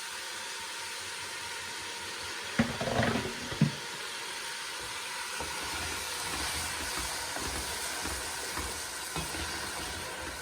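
Chopped onions sizzling steadily in oil in a pot, with a little water just added. About three seconds in there is a brief louder patch with a couple of knocks, like a utensil against the pot.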